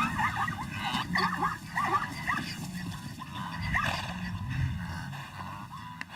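Animal calls: a rapid series of short, high yelping calls, several a second, over a low steady hum.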